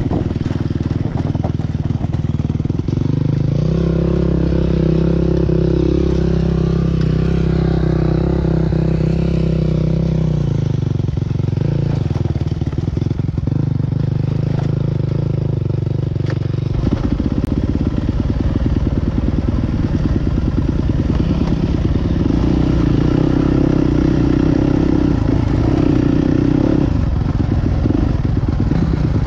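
Motocross motorcycle engines running and revving. The engine note holds steady for several seconds at a time and shifts pitch a few times.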